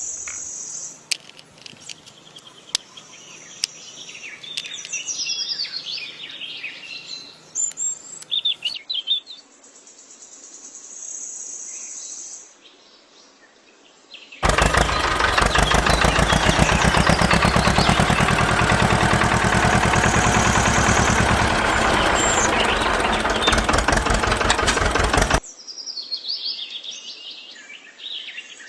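Birds chirping with a few clicks, then a power tool runs loudly for about eleven seconds with a fast, even rattle and stops suddenly, after which the chirping returns.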